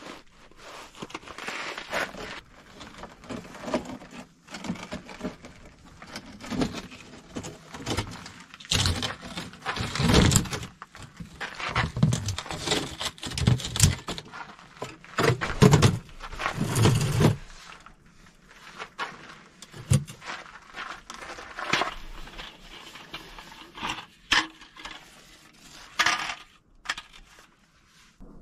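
Rustling and scraping as a nylon inflatable sleeping pad and its groundsheet are handled and shifted over gravel, in irregular strokes. The busiest, loudest stretch falls in the middle, followed by quieter handling with a few sharp knocks.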